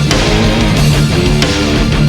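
Loud, driving rock music with distorted electric guitar and drums keeping a steady beat.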